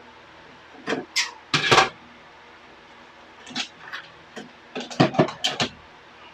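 Short plastic clicks and knocks from handling a hair dryer's power cord and pushing its plug into a wall socket, in two clusters, about a second in and again around five seconds in. The dryer itself is not yet running.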